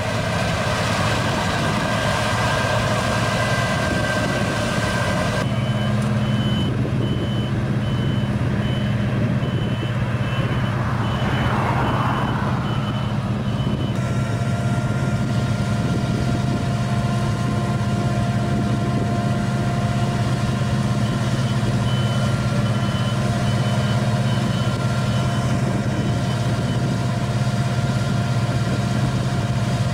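Claas Lexion 750 combine harvester running steadily with a deep engine hum. A high warning beeper sounds in rapid repeated beeps for several seconds, first about five seconds in and again past the middle.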